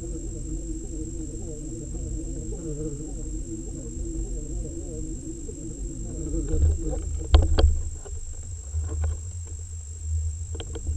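Underwater ambience with a low rumble and a wavering hum. Two or three sharp knocks come about seven and a half seconds in, and a couple more near the end.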